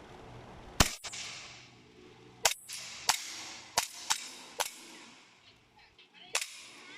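1911-style airsoft pistol firing seven sharp shots at uneven spacing, a test-fire after its hop-up rubber has been replaced.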